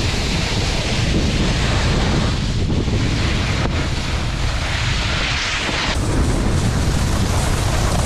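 Wind buffeting the microphone of a camera carried while snowboarding downhill, under a hiss of the board sliding and scraping over snow. The hiss swells and fades with the turns and drops back suddenly about six seconds in.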